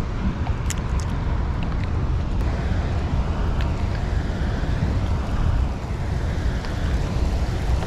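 Wind rumbling on the microphone over steady rain falling on a river, with a few faint ticks.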